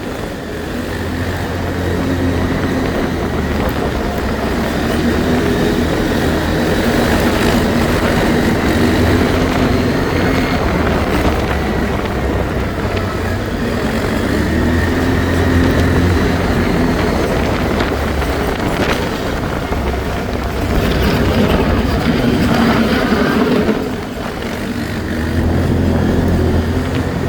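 ATV engine running under changing throttle, its note rising and falling several times, with a short easing off about three-quarters of the way through.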